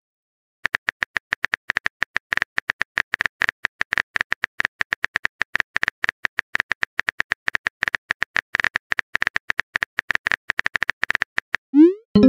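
Phone keyboard typing sound effect from a texting-story app: rapid, irregular soft clicks, one per letter, as a message is typed. Near the end a short rising swoosh as the message is sent.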